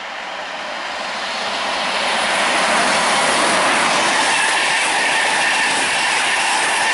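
A Class 91 electric locomotive and its Mark 4 coaches passing close by at speed on main-line track: the rushing noise of the train grows louder over the first two or three seconds, then holds steady as the coaches go by, with a faint whine joining about halfway through.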